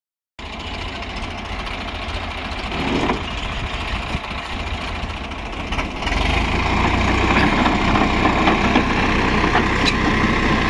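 Swaraj 855 tractor's three-cylinder diesel engine running steadily, getting louder with a fuller sound about six seconds in as it takes on more load or revs.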